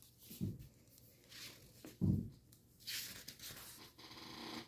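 Faint rustling and crinkling of folded paper being handled and pinched into shape, with soft low bumps about half a second and two seconds in.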